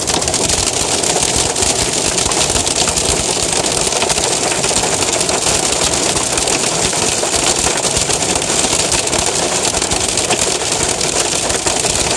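Hail and heavy rain drumming steadily on a car's roof and windows, heard from inside the car as a dense, unbroken patter of impacts.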